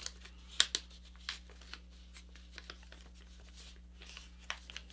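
A sheet of A4 paper being folded by hand: quiet rustling and a few sharp crackles and clicks as a crease is reversed and the folded layers are pressed and tucked in, over a faint steady low hum.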